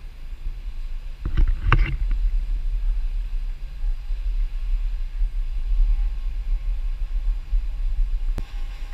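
Engine of a paddlewheel excursion boat running as it passes close by, a steady low rumble, with a couple of brief louder sounds about a second and a half in.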